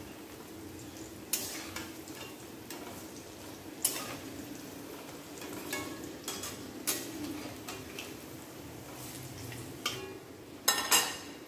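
Lentil pakoras frying in hot mustard oil in a metal kadhai, with a steady sizzle. A flat metal spatula scrapes and knocks against the pan about once a second as they are turned over, with two louder knocks near the end.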